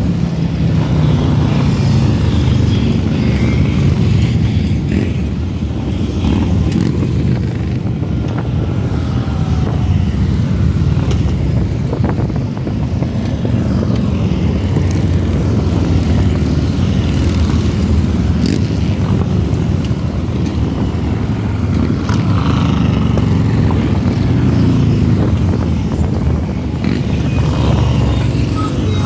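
A procession of cruiser and touring motorcycles riding past, their engines running in a continuous low exhaust note that swells and eases as each group goes by.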